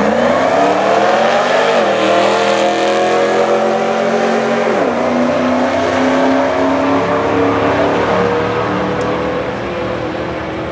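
Modified Ford SVT Lightning's supercharged 5.4-litre V8, fitted with a 2.3-litre Whipple supercharger, long-tube headers and a 3-inch exhaust, launching at full throttle in a quarter-mile drag run. The engine pitch climbs steeply, drops back at gear changes about two and five seconds in, then holds while the sound slowly fades as the truck runs away down the strip.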